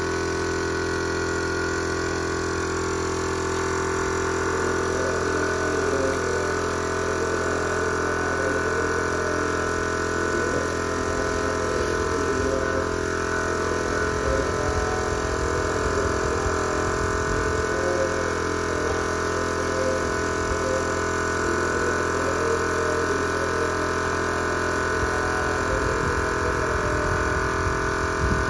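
Air compressor running steadily for spray painting, a constant mechanical hum.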